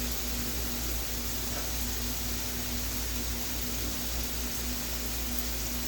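Steady background hiss with a constant low hum underneath, like a running fan; no distinct events.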